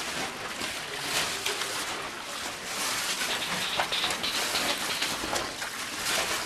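Feet splashing through a shallow stream on a cave floor, with the water rushing steadily underneath: a dense hiss broken by many irregular splashes.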